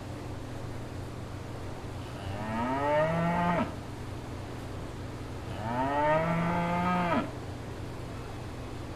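A cow mooing twice, each call about a second and a half long and rising in pitch before breaking off, over a steady low hum.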